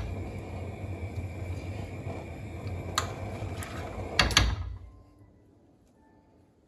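A metal spoon stirring and spreading thick tomato sauce around a non-stick frying pan, with a sharp click about three seconds in and a few quick knocks a little after four seconds, over a steady low hum. The hum stops about five seconds in, leaving near silence.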